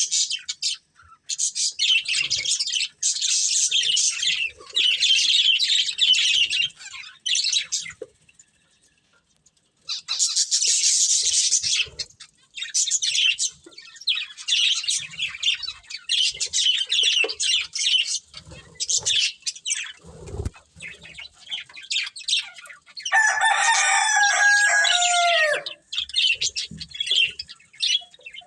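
Budgerigars chirping and chattering in rapid, high-pitched runs. The chatter breaks off for about a second and a half early on. Near the end comes a longer, lower call of about three seconds that falls in pitch as it ends.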